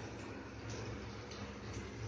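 Tomato gravy simmering in a pan on a gas stove: a steady low hiss and hum, with a few faint scrapes of a spoon stirring it.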